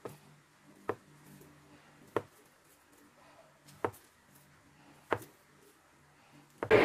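Kitchen knife slicing through a block of Spam and knocking on the cutting board, about five sharp knocks a second or more apart. Near the end a much louder steady noise cuts in suddenly.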